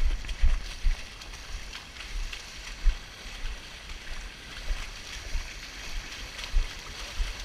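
Several people wading through shallow muddy water, their feet splashing and sloshing with each step, with irregular low thumps.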